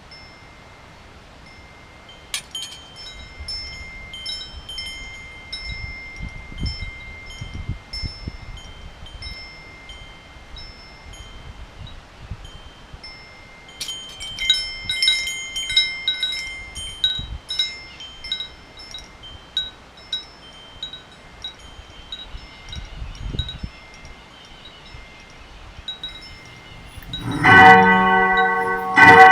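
Metal wind chimes tinkling in scattered, irregular strikes, with a busier flurry about halfway through. Near the end a louder, deeper bell rings out with many overlapping tones.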